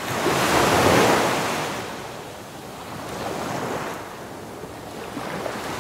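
Rushing water and surf sound, swelling strongly about a second in and fading, then two softer surges like waves.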